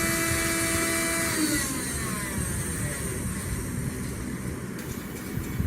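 Small electric motor on a 3D-printed CNC seeding machine whining steadily, then falling in pitch and winding down about a second in, leaving a steady noisy hum.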